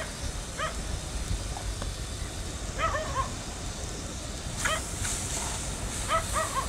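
Several short animal calls, a second or two apart, over a faint steady background noise.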